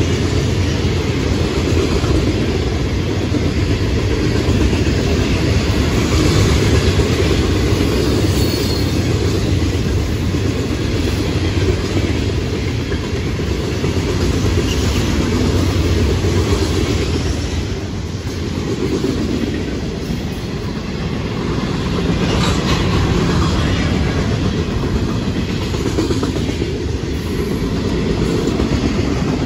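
Florida East Coast Railway freight cars, loaded rock hoppers and then autoracks, rolling past close by: a steady rumble with the clickety-clack of steel wheels over rail joints.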